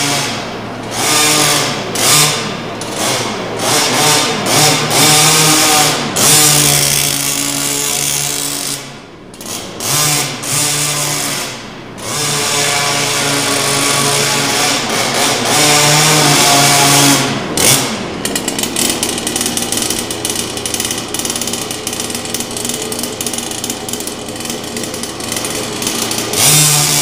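Small two-stroke engine of a radio-controlled car revving up and easing off again and again as it is driven, the pitch rising and falling with the throttle. About two-thirds of the way through it settles into a steadier run with a fast, even pulse.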